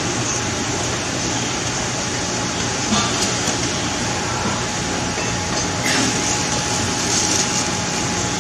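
Steady, loud background rumble and hiss with a faint hum, and a couple of soft knocks, about three and six seconds in.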